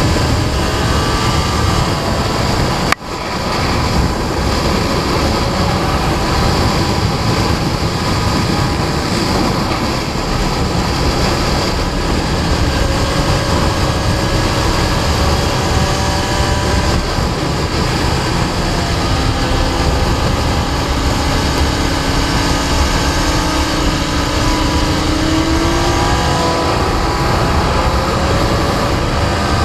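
Sport motorcycle at speed on a racetrack. The engine's pitch slowly rises and falls under heavy wind noise on a bike-mounted camera. A sharp click with a brief drop in sound comes about three seconds in.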